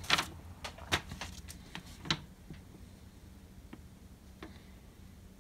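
Packing paper rustling and light clicks and knocks of parts being handled in a cardboard shipping box, a few sharper ones in the first two seconds, then only faint, scattered ticks.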